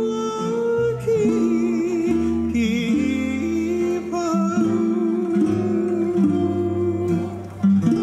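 Hawaiian hula song: plucked acoustic guitars playing steady chords, with a singing voice or sliding lead line wavering above them.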